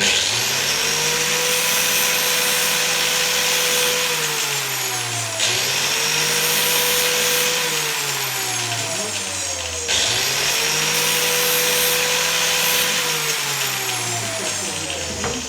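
Angle grinder, speed-limited to about 4000 rpm, spinning up and running with a steady motor hum under a harsh grinding hiss as the pruning-shear blade is sharpened on it. Its pitch slides slowly downward three times, jumping back up in between.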